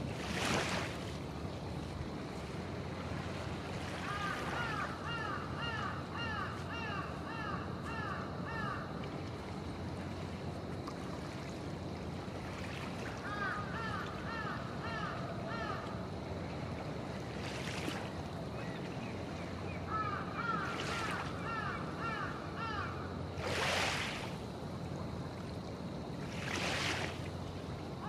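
Gentle harbour waves lapping, with a few slightly louder splashes. A bird calls over them in four runs of quick repeated notes.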